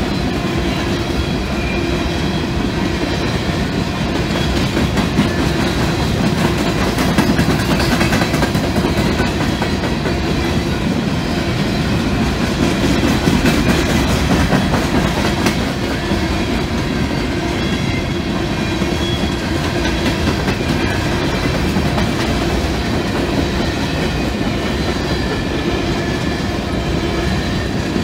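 Freight train of coal hopper cars rolling steadily past over a grade crossing: a continuous rumble with the clatter of steel wheels on the rails.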